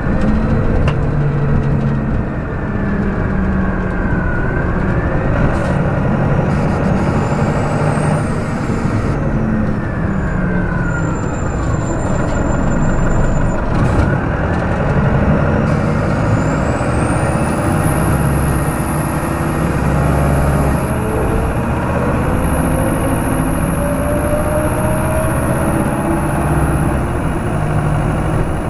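Detroit Diesel Series 50 engine of a New Flyer D40LF transit bus, recorded close up while the bus is under way. Its pitch falls and rises several times, and a slow climb comes in the last few seconds. A high whine rises about two-thirds of the way in and then holds steady.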